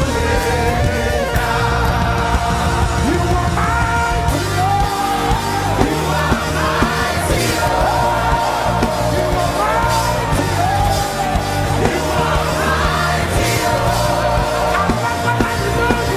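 Live gospel praise-and-worship music: a band with steady bass and drums playing under voices singing, with shouts mixed in.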